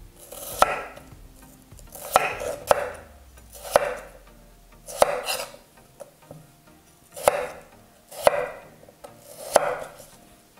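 Chef's knife slicing peeled raw potatoes into wedges on a wooden cutting board: about nine separate, unevenly spaced cuts, each a sharp knock of the blade on the board with a brief scraping hiss.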